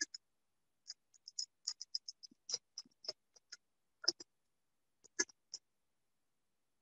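Spatula stirring thick chocolate cake batter in a plastic bowl: irregular soft wet clicks and scrapes, a few close together, then a pause before the next group.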